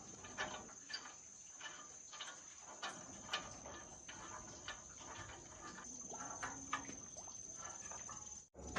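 Irregular light clicks and taps of hand tools on metal engine parts, at a quiet level.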